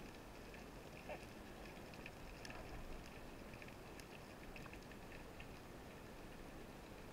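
Faint underwater ambience heard through a camera housing: a low steady hiss with scattered small clicks and crackles, a few slightly stronger about a second in and near the middle.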